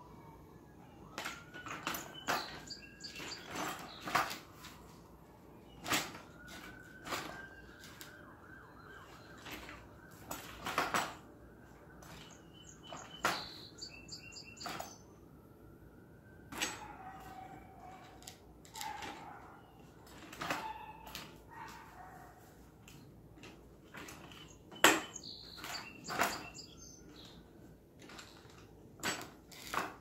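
Scattered clicks, knocks and rattles from the metal tube frame and fittings of a folding chaise lounge chair being handled and put together. Behind them a faint siren slowly rises and falls several times in the first half.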